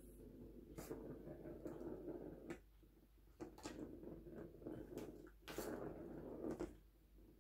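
Plastic ball rolling around a circular track toy as a cat bats it: a faint rumbling with several sharp clicks and knocks, stopping near the end.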